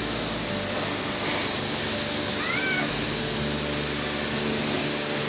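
High-pressure car-wash water gun spraying a car: a steady, even hiss of water jet. About halfway through comes a brief high-pitched squeal that rises and falls.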